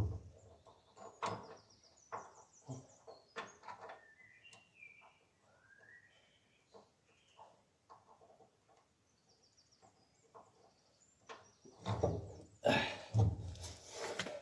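Scattered knocks and clunks as heavy spreader parts are handled and lifted into place, loudest in a cluster near the end. Small birds chirp and twitter in the quieter stretches between.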